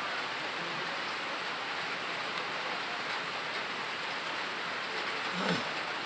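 Steady, even hiss of background noise with no clear source, and a faint brief sound about five and a half seconds in.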